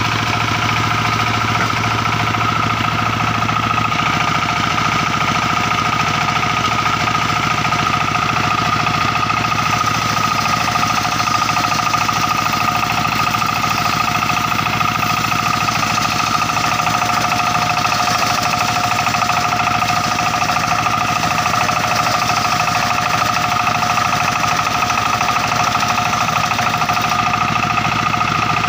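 Circular-saw sawmill running steadily, its blade giving a high, steady whine over the low drone of the machine.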